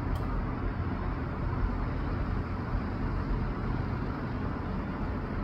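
Steady low outdoor background rumble with no distinct events, broken by one short faint click about a fifth of a second in.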